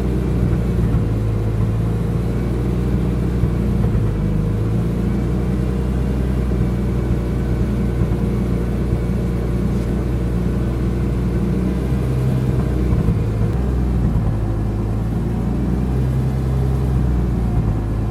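BMW E46 M3's S54 straight-six engine running at a low, fairly steady engine speed, its pitch wavering slightly now and then. The car has a misfire and knock with lack of power at low rpm once fully warmed up.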